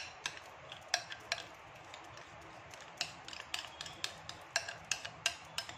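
Metal spoon clicking and scraping against a glass while thick batter is scooped into a plastic piping bag lining it. The sharp ticks come irregularly at first and more often near the end.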